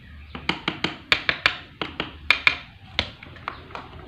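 A quick, irregular run of sharp clicks and knocks, about a dozen, from the electric fan motor and a screwdriver being handled on a tabletop while the freshly reassembled motor's shaft is turned by hand.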